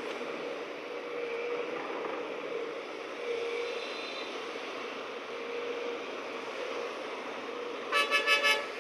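Vehicle horn giving four quick toots near the end, over the steady noise of a running engine.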